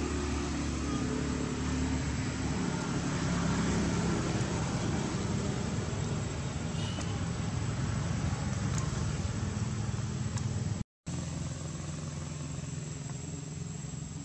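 A steady low engine rumble, like a motor vehicle running, with an even hiss above it; the sound cuts out completely for a moment about eleven seconds in.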